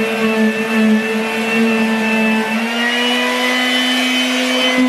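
Small corded electric sander running steadily, with a high motor whine, as it sands popcorn texture off a ceiling. Its pitch rises a little about halfway through and drops again near the end.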